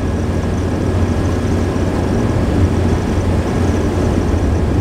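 Steady road and engine noise inside a 22-foot motorhome cruising at highway speed: an even, unchanging low drone.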